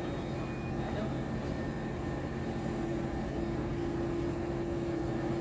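Heavy lifting machinery running steadily during a bridge-gantry beam lift. It gives a constant drone with a hum that grows stronger about three seconds in.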